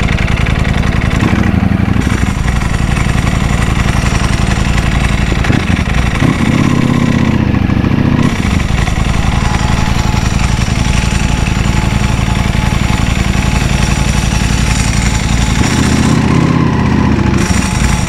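2019 Ducati Panigale V4S's 1103 cc V4 engine, fitted with a dry clutch, running as the bike is ridden slowly. The note shifts briefly a few times as the throttle changes.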